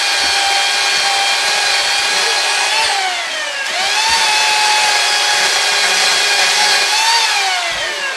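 Chainsaw running at high revs. Its pitch falls as the throttle is eased about three seconds in, rises back to full speed about a second later, and falls again near the end.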